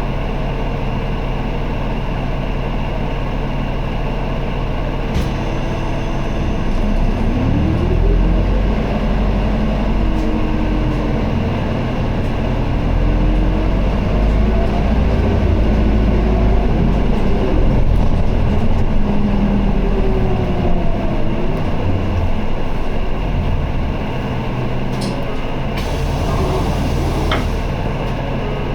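Inside an Isuzu Erga city bus: the diesel engine runs steadily at first, then about seven seconds in the bus pulls away and the engine note rises and falls as it accelerates and eases off. A steady hum from the cabin heater runs underneath, and a few sharp clicks come near the end.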